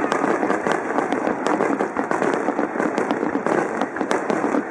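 Aerial firework shells bursting overhead in a rapid barrage: many sharp pops and crackles, several a second, over a continuous dense crackling noise.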